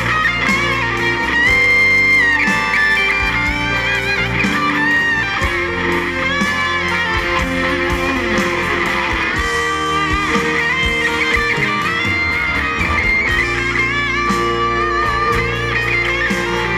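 Live rock band playing an instrumental passage: strummed acoustic guitars, electric guitar and bass guitar with a steady beat under a lead melody of held, bending notes.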